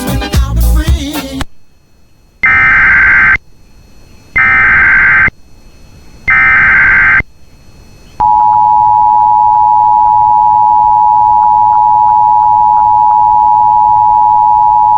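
Emergency Alert System tones: three SAME header data bursts, each a harsh digital warble about a second long, then the two-tone EAS attention signal (853 and 960 Hz) held steadily from about eight seconds in. Together they signal the start of a new alert, here a flash flood warning. A brief noisy sound fills the first second and a half.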